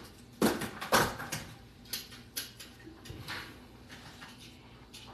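About half a dozen light knocks and clicks, the strongest in the first second and a half, then weaker and sparser, over faint room background.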